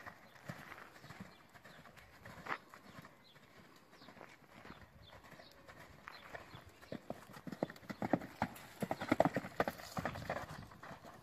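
Horse's hooves clip-clopping on hard ground, a few scattered steps at first, then a quicker, louder run of steps from about two-thirds of the way in.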